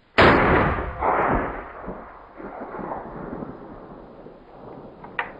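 A single shot from a K-31 Swiss service rifle in 7.5x55mm Swiss, sharp and very loud, followed by about two seconds of rolling echo. A short sharp click comes near the end.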